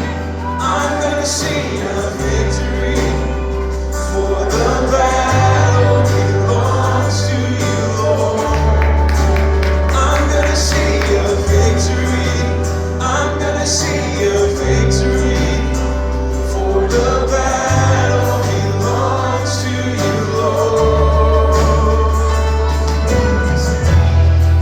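Gospel worship music: several singers over a band, with held bass chords that change every few seconds.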